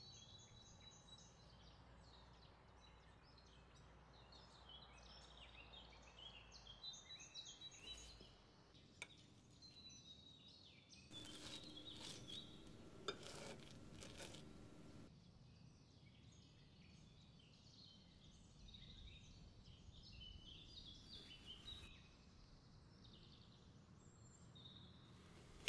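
Near silence with faint bird chirps in the background. In the middle, a few seconds of louder scraping with one sharp click, a fork cutting through frozen ice cream against a ceramic plate.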